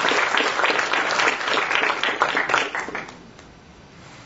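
Audience applauding: many hands clapping densely together, fading out about three seconds in.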